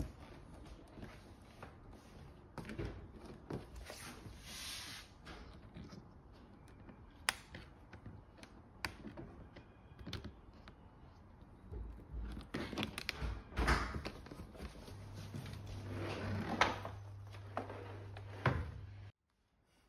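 Hard-shell Samsonite spinner suitcase being handled: scattered knocks, clicks and rubbing of the shell and wheels as it is tilted and the lid is opened. A low steady hum joins for the last few seconds, and the sound cuts off suddenly just before the end.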